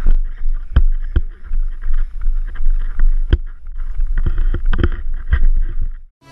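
Wind buffeting a GoPro action camera's microphone as a low, steady rumble, with irregular knocks and thuds about every half second as the camera is jostled by its moving wearer. The sound cuts off suddenly a little before the end.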